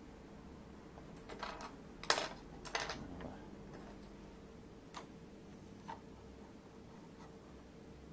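Disposable wooden chopsticks clicking and knocking against each other and the wooden tabletop as they are woven into a self-supporting lattice bridge. A cluster of light clicks comes between one and three seconds in, the loudest about two seconds in, then two single taps around five and six seconds.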